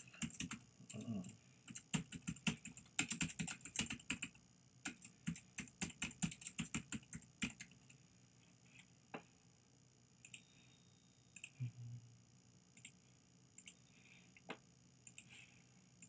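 Typing on a computer keyboard: a quick run of key clicks for about seven seconds, then scattered single clicks.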